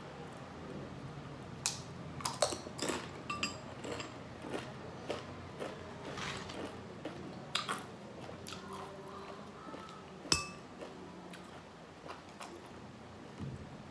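Metal spoon clinking against glass bowls of salsa while tortilla chips are handled and crunched, a scatter of sharp clicks and crunches. The sharpest, ringing clink comes about ten seconds in.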